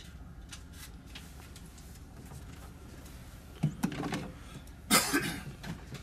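A fridge-freezer door being handled, with a few brief knocks and rustles over a quiet room background. The loudest is a short sharp sound about a second before the end.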